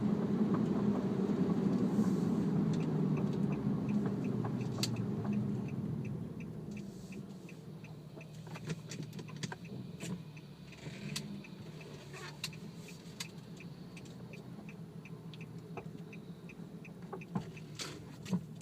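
Cabin noise in an Infiniti G37X sedan: road and drivetrain rumble that dies down after about six seconds as the car slows. A faint steady ticking at about two to three a second follows, with scattered sharp clunks and knocks from the suspension, which the owner blames on newly fitted BC Racing coilovers.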